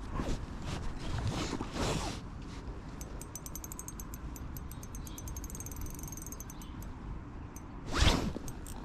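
Rapid, even clicking from a spinning reel as a hooked pike is played on light tackle, starting about three seconds in and lasting several seconds, over a low wind rumble. Rustling handling noise comes near the start, and a loud rustle against the microphone near the end.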